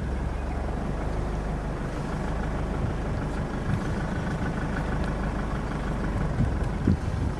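Harvesting machine's engine running steadily under load, with a couple of brief low thumps near the end.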